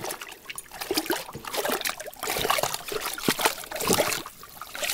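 Water splashing and sloshing in an ice-fishing hole as a small lake trout thrashes at the surface and is grabbed and lifted out by hand. The splashes come in irregular bursts.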